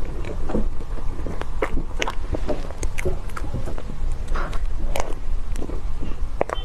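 Close-miked mukbang eating of molten chocolate cake: wet chewing with frequent irregular mouth clicks and smacks over a steady low rumble.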